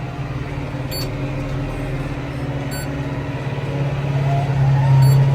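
Tractor engine running steadily while the round baler's monitor gives a short high beep about every two seconds. Near the end the engine revs up, with a rising whine.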